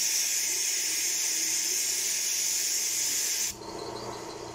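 Compressed-air blow gun hissing steadily as it blows coolant out of the engine's water passages. It cuts off suddenly about three and a half seconds in.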